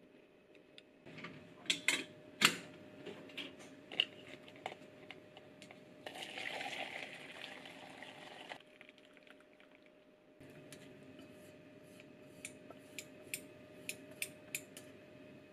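Stainless steel pot and mesh strainer clanking against each other, then dashi broth poured through the strainer into a plastic container, a steady splashing pour lasting about two and a half seconds. A run of light clicks and taps follows near the end.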